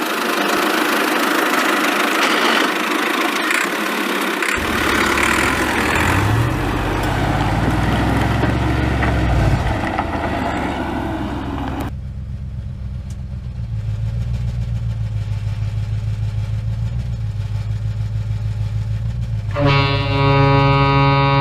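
An engine running low and steady, rising and falling in pitch for a few seconds as if revving, after an opening stretch of hiss-like noise. Music with sustained notes comes in near the end.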